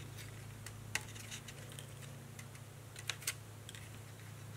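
Faint rustling and light clicks of cut paper pieces being handled and pressed into place by hand. A few sharper ticks come about a second in and twice around three seconds in, over a steady low hum.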